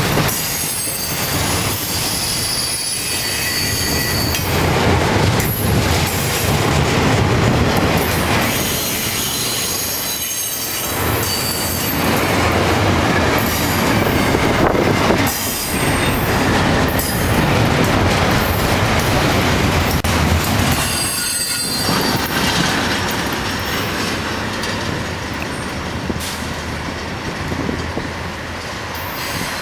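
Florida East Coast Railway double-stack container train rolling past close by: steel wheels running on the rails with rattling cars, and high wheel squeal that comes and goes.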